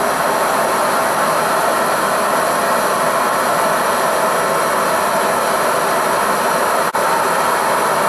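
Bernzomatic BZ8250HT air/propane hand torch burning propane into a small homemade furnace, a loud, steady rushing flame noise as the furnace heats past 1500 °F. The sound drops out for an instant about seven seconds in.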